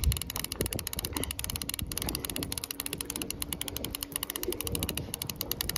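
Fishing reel clicking rapidly and evenly as it is cranked, winding a hooked fish up from deep water on a bent rod.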